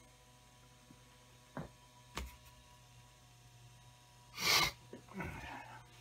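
Cooling fan of a Marshall MG100HDFX solid-state amp running with a steady hum; the fan is noisy, and the owner wonders whether oiling it would quieten it. Two light clicks come between about one and a half and two seconds in, and a person's short sharp breath about four and a half seconds in, followed by a brief low murmur.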